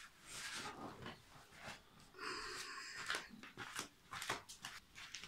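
Quiet rustling and shuffling of a person getting up out of an upholstered armchair and moving away, with a few soft taps and clicks.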